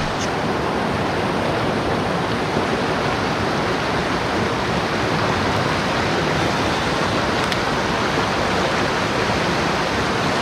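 Fast mountain stream rushing steadily over rocks, running high with early-spring water: an even, continuous hiss of water.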